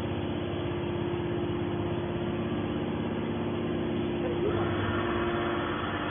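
Hydraulic can baler's electric motor and pump running with a steady hum, the sound getting a little brighter about four and a half seconds in.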